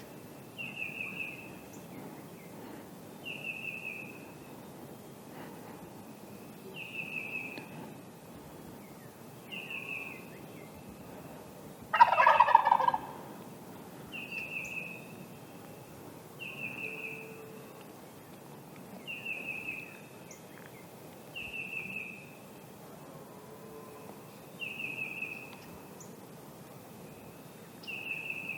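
A wild turkey gobbler gobbles once, loudly, about midway through. A songbird repeats a short falling whistled note every two seconds or so.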